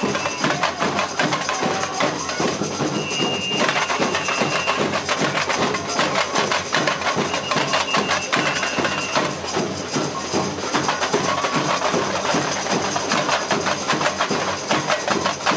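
Samba bateria (Brazilian street-percussion band) playing a fast, steady samba rhythm on drums and tamborins. A high held tone sounds three times over the drumming.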